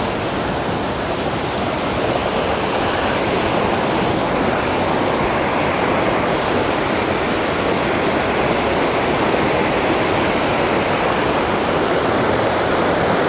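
Waterfall cascade: a steady, loud rush of falling water.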